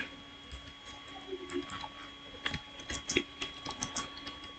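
Faint, irregular clicking of a computer keyboard being typed on, a few key clicks a second, over a faint steady electrical hum.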